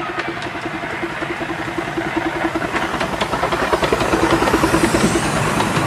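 Miniature steam locomotive approaching and passing close by, hissing steam and puffing in a quick steady rhythm, with sharp clicks from the wheels over the rails; it grows louder as it nears.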